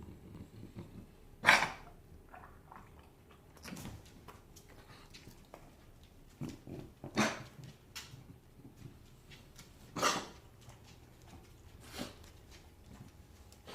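English bulldog puppy coughing, a sign that it is sick: single coughs every few seconds, the loudest about a second and a half in, with more strong ones around seven and ten seconds in and smaller ones between.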